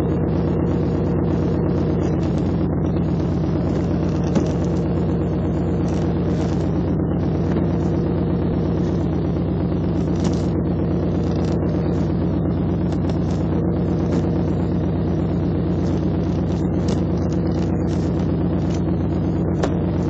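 Steady idle-speed running of a 2000 Pontiac Firebird's drivetrain, its engine and T56 six-speed manual transmission, with an even hum that holds unchanged throughout. This is the weird noise the owner says the T56 makes when put in gear.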